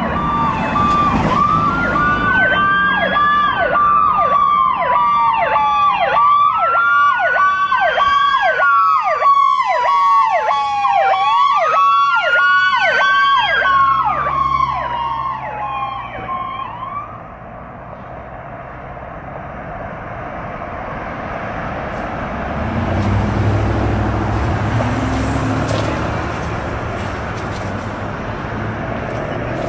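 Fire department emergency vehicle's electronic sirens sounding as it passes: a slow wail rising and falling every few seconds over a fast yelp. The sirens stop a little past halfway through, and a low vehicle engine and tyre rumble follows near the end.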